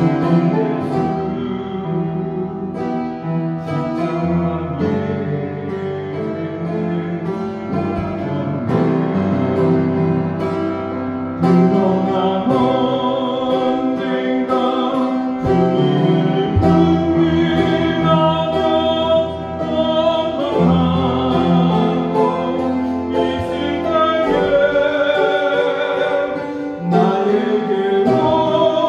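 Upright piano playing a praise-song hymn tune, with chords and a bass line under the melody.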